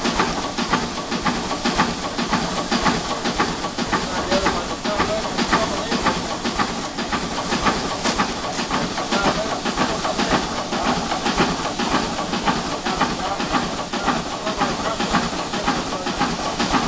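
Ruston Proctor portable steam engine running: a steady hiss of steam with a quick, even beat from the working engine.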